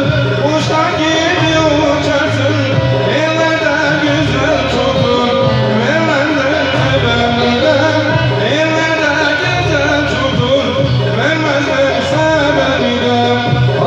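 A man singing into a microphone through an amplifier, over keyboard accompaniment with a steady low bass beat and a string instrument.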